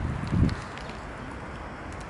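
Mute swans dabbling at the water surface with their bills as they feed on floating flakes: faint wet clicks over a steady outdoor hiss, with a short low thump about half a second in.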